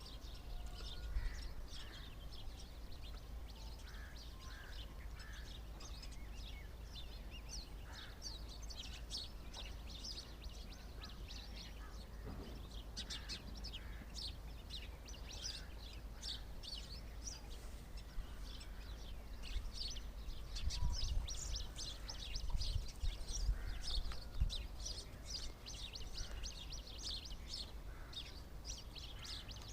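A flock of small birds chirping, with many short, high chirps overlapping and growing busier after the first few seconds. A low rumble runs underneath and gets louder in uneven bumps a little past the twenty-second mark.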